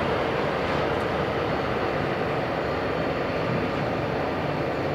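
Four Lycoming ALF502 turbofan engines of a BAe 146-200 running steadily at taxi power as the jet taxis, a constant rush with a faint high whine.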